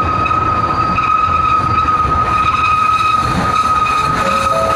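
Kurobe Gorge Railway narrow-gauge trolley train running, heard from inside its open-sided carriage: a steady rumble of wheels on rail with a steady high-pitched squeal of the wheels over it.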